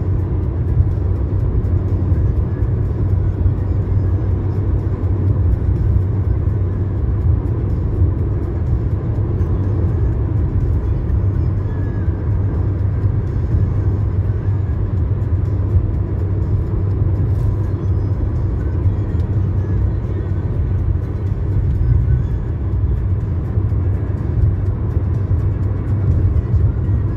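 Steady low road and engine rumble heard inside a car's cabin while cruising at highway speed.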